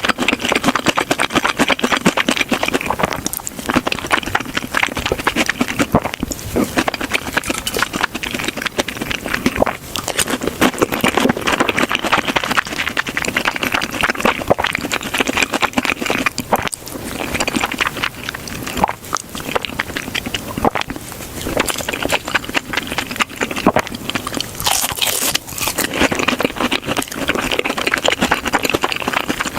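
Close-miked crunching of crispy breaded fried pork cutlet (tonkatsu) being bitten and chewed, a dense crackle coming in bouts.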